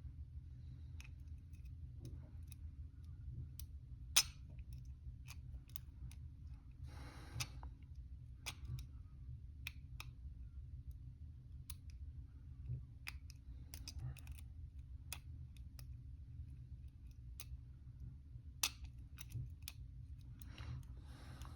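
Faint, irregular small metallic clicks of a disc pick and tensioner working the rotating discs of an ABUS 2470 disc-detainer padlock, with two sharper clicks, one about four seconds in and one near the end.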